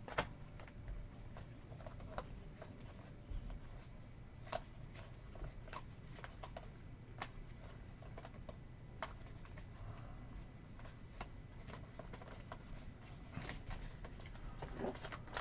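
Trading cards being handled at a table: faint scattered clicks and taps every second or two, over a low steady room hum.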